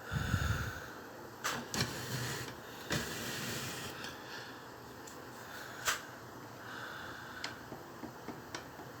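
Eletromar Westinghouse electric table fan running with a steady rush of air. A low thump comes right at the start, and several sharp mechanical clicks are scattered through it.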